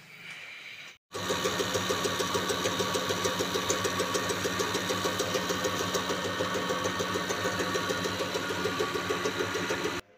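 Common rail injector test bench running with a Bosch 0445120568 BS6 diesel injector firing in it: a steady machine hum with rapid, evenly spaced ticking of the injector solenoid, starting about a second in. The injector is being bench-tested for its main and back-leakage quantities.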